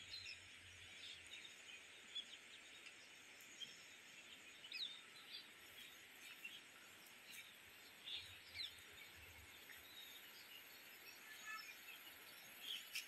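Faint outdoor ambience: scattered short bird chirps over a steady high hiss.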